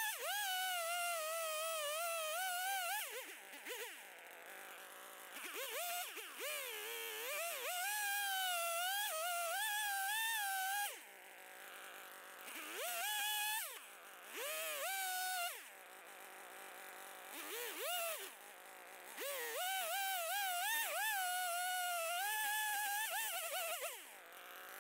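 Two-stroke Stihl chainsaw cutting into a log, revving hard under load in several long stretches and dropping back to idle between them as the bar is drawn out of the cut. The pitch wavers as the chain bites into the wood.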